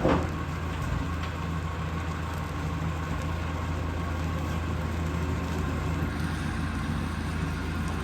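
A vehicle engine idling steadily. A short, sharp sound with a falling pitch comes right at the start and is the loudest moment.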